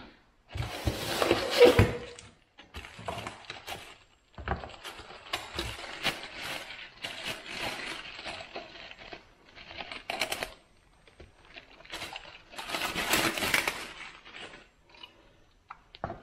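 Plastic bag crinkling and cardboard packaging rustling as a new carburetor is unwrapped from its box, in irregular bursts that are loudest about a second in and again near the end.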